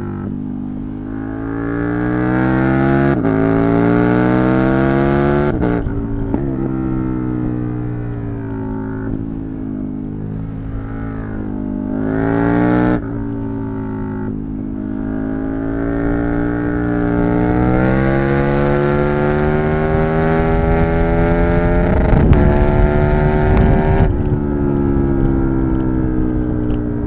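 KTM 1290 Super Duke R's V-twin engine pulling hard under acceleration. The pitch climbs and drops suddenly at each shift, about 3, 6 and 13 seconds in, then comes one long rising pull that falls off sharply near the end.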